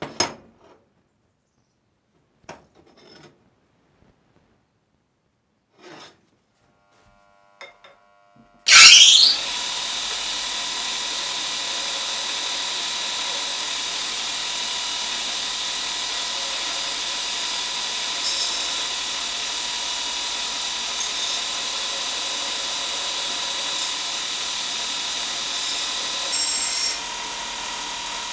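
A few scattered knocks and clicks, then a power tool starts with a quickly rising whine about nine seconds in and runs on steadily, with a constant high tone over a grinding hiss.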